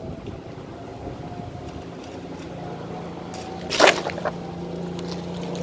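A loose cottonwood branch, blown out of a tree by a wind gust, lands on the ground with a single sudden whump about four seconds in, followed by a few lighter twig rustles, over steady background noise.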